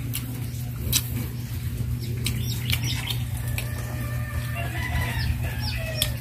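Small birds chirping in short, repeated falling notes, with a chicken clucking in the second half, over a steady low hum. A few sharp clicks, about a second in and near three seconds.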